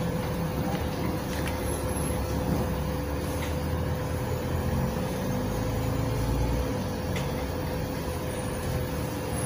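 Cabin noise of a moving LiAZ 5292.67 city bus, its natural-gas YaMZ-53624 engine and automatic gearbox running under way. A steady whine sits over the engine drone, whose pitch climbs and then falls away about seven seconds in, with a few light rattles.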